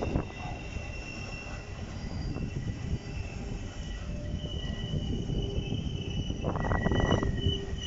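A train rolling past, its wheels squealing in thin, high, drawn-out tones over a steady rumble, with a louder burst of clatter near the end.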